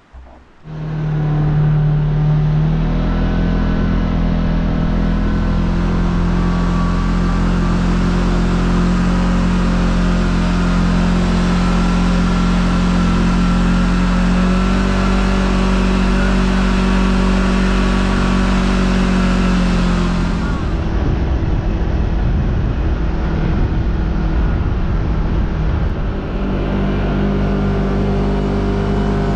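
Side-by-side UTV engine running under way, a loud steady drone that starts suddenly about a second in. Its note shifts slightly a few times and turns rougher about twenty seconds in.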